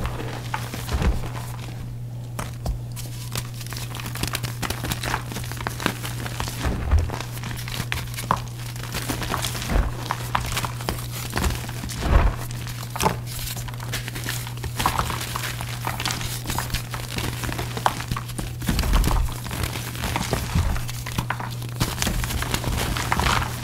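Pasted gym chalk reforms being crushed: irregular crisp crunches and crumbles, with a steady low hum underneath.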